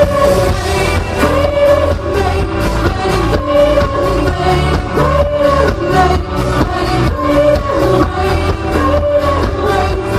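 A man singing a pop song live into a microphone over a backing track with a steady beat.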